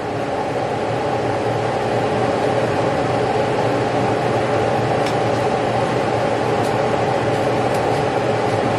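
A motor-driven fan, like a kitchen appliance's, running with a steady hum and whir. It swells in level over the first couple of seconds and then holds.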